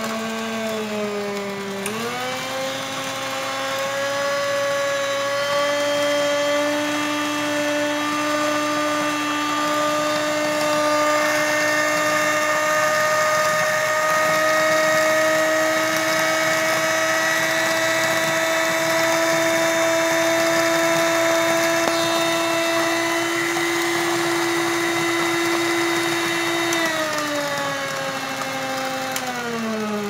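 Walita RI3109 stand mixer's motor whining steadily as its twin beaters mix flour into carrot cake batter. The pitch steps up about two seconds in and drops in two steps near the end.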